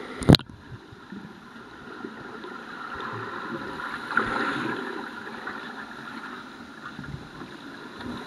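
A sharp splash just after the start, then muffled underwater sloshing and bubbling as a kayak is capsized and rolled back upright, the paddle sweeping through the water.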